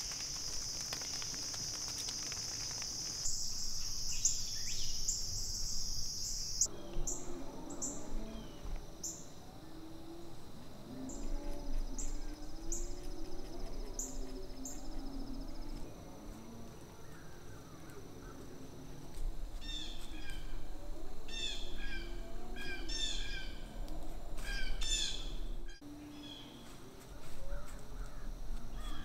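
Woodland ambience with birds calling: scattered short high chirps, then a run of repeated calls, about one a second, near the end.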